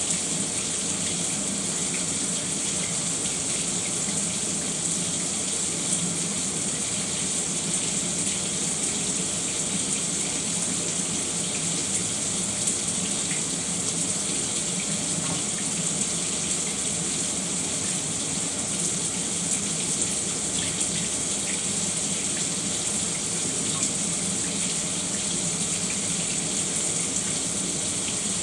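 Shower running steadily, with a continuous hiss of spraying and splashing water.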